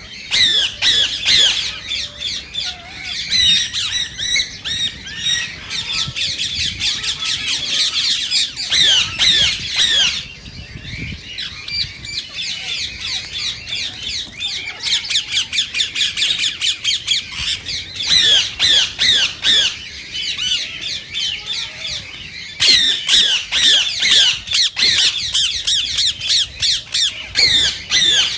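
Indian ringneck parakeets calling in long runs of rapid, shrill squawks, several a second, with a short quieter lull about ten seconds in.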